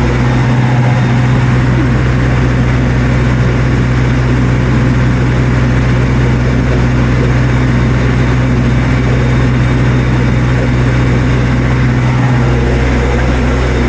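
Generator engine running steadily at close range: a constant low hum, loud enough that one has to raise one's voice to talk over it.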